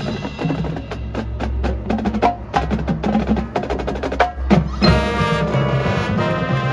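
Marching band field-show music: rapid sharp percussion strikes from the front ensemble's mallets and drums over a low held bass, then about five seconds in the band swells into a sustained full chord.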